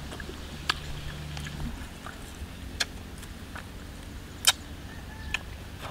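Scattered short clicks and snaps from picking and eating small wild red fruits off a leafy branch, the sharpest about four and a half seconds in, over a faint low hum.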